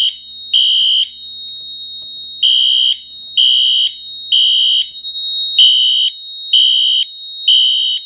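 Fire alarm horn sounding the temporal-3 evacuation pattern: three loud, high-pitched half-second beeps, then a pause, repeating, because a smoke detector has been tripped and the panel is in alarm. A thin steady high tone sounds underneath throughout.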